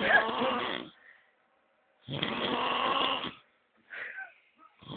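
Snoring in long, noisy breaths, one about every two and a half seconds. A shorter, fainter sound comes between the second snore and the next.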